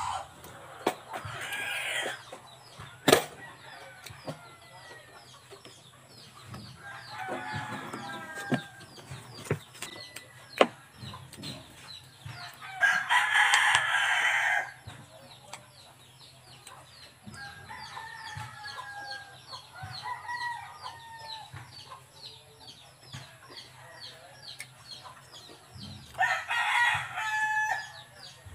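Backyard chickens clucking, with a rooster crowing loudly about halfway through and again near the end. A sharp click is heard about three seconds in.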